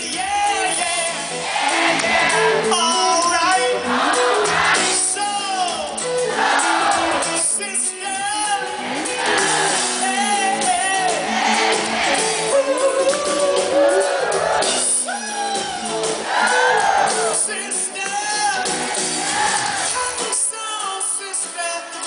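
Live pop-rock band playing loudly: a male lead singer sings into a microphone over ukulele, electric guitar and drums.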